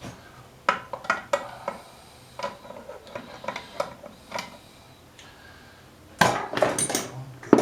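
Hand tools clinking and tapping on metal engine parts while bending back small metal locking tabs, a string of scattered sharp taps, then a louder clattering scrape about six seconds in.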